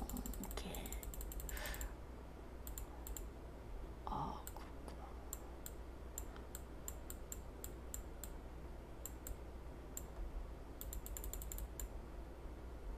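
Faint clicking of a computer keyboard being typed on, in short quick runs with single clicks in between.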